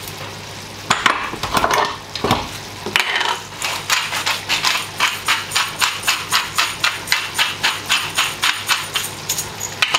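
Hand-turned salt mill grinding over a pan of minced-meat sauce: a steady run of short ratcheting clicks, about three a second, from a few seconds in.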